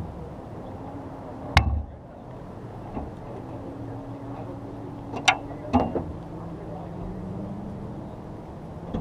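Porsche GT3 RS Cup car's flat-six idling steadily while stopped. A sharp knock comes about a second and a half in, and two smaller knocks follow near the end.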